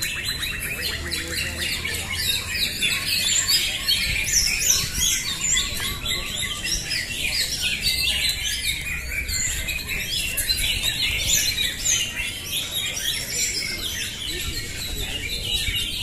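Many caged green leafbirds (cucak hijau) singing at once: a dense, continuous tangle of overlapping high chirps, trills and whistles.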